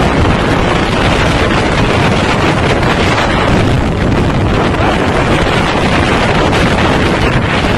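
Strong storm wind blowing across the microphone: a loud, steady rushing noise with no breaks.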